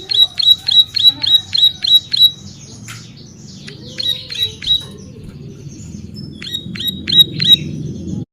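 Ciblek sawah (plain prinia) singing: fast runs of sharp, high repeated notes at about five a second, in three bursts separated by shorter varied chirps and a quieter pause past the middle.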